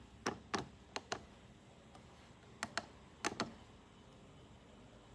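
Buttons on an inverter's LCD keypad being pressed: sharp plastic clicks, mostly in quick pairs, coming in two clusters with a pause of about a second and a half between them.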